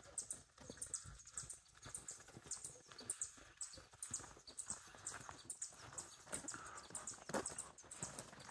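Footsteps crunching irregularly along a dry dirt forest trail, about two to three steps a second.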